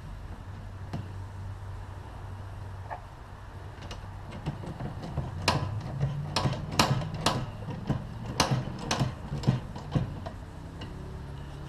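Sharp little metal clicks and clinks, about ten of them in the second half, as a nut and a small socket are worked by hand onto a new stud in a recliner's steel reclining mechanism, over a steady low hum.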